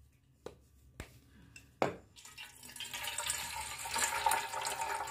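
A coconut being cracked open: three sharp knocks on the shell in the first two seconds. Then its water pours and splashes into a stainless steel bowl, getting louder toward the end.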